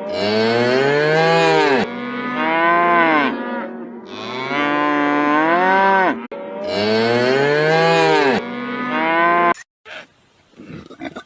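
Cattle mooing: about five long, loud moos in a row, each rising and then falling in pitch, stopping abruptly about two seconds before the end.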